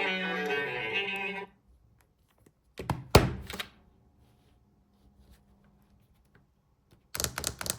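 A phone's ringtone of bowed-string music plays and cuts off suddenly about a second and a half in. Two short clusters of knocks and taps follow, one about three seconds in and one near the end.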